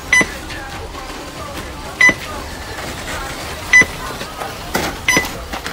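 Electronic race lap-timing system beeping: five short, high beeps at uneven intervals, each marking an RC car crossing the timing line.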